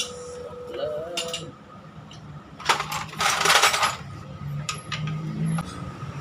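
Metal hand tools and small engine parts clinking and rattling, in scattered sharp clicks with a longer, louder jangle of loose metal about three seconds in.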